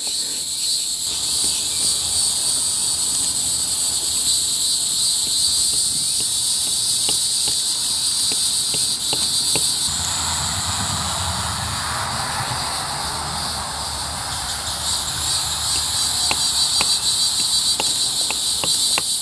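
A steady, shrill chorus of insects trilling, with scattered faint clicks. About ten seconds in the chorus dips for a few seconds under a low rushing noise, then returns.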